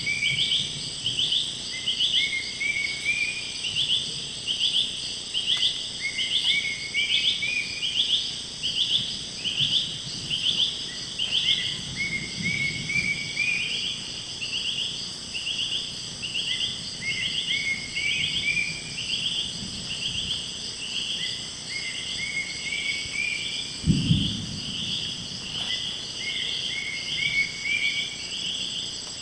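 Amazon rainforest insect chorus: a steady high whine under rhythmic pulsed chirping, about two chirps a second. Every few seconds a second caller repeats a short run of rising notes. A single low thump comes near the end.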